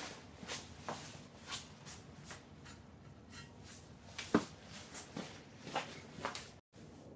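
Footsteps and shuffling on a concrete garage floor, a soft step about every half second, with one sharper knock about four seconds in.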